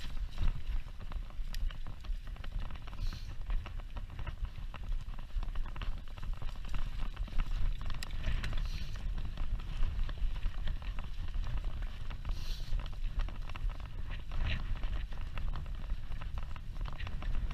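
Wind rumbling on the microphone while a mountain bike rides over a rough dirt track, the tyres crunching and the bike rattling with many small sharp clicks.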